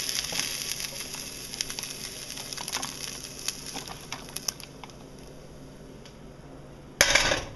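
Spatula scraping and tapping browned ground turkey out of a frying pan into a plastic food container, with small clicks and the hiss of the hot pan's sizzle dying away. A short loud clatter comes about seven seconds in.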